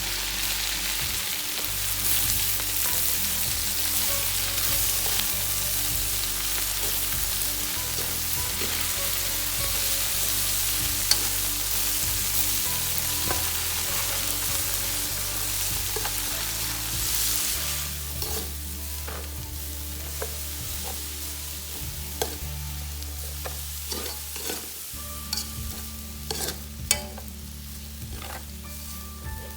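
Food sizzling as it fries in a pan and is stirred. About two-thirds of the way through the sizzle dies down, leaving scattered clicks and scrapes of the utensil against the pan.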